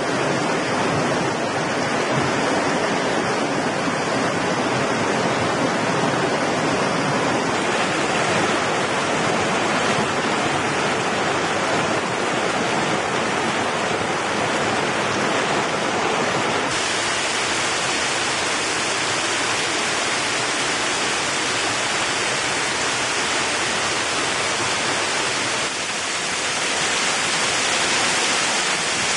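Rushing water of a rocky mountain stream and a small waterfall: a steady, dense hiss of flowing and falling water. Its tone changes abruptly three times, as it passes from one stretch of water to another.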